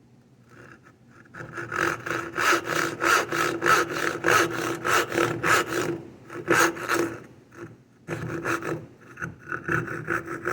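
Back saw cutting across a board in quick, rhythmic push-and-pull strokes, removing the waste between finger joint fingers by sawing down to meet an earlier cut. The sawing starts about a second in, stops briefly near seven seconds, then resumes.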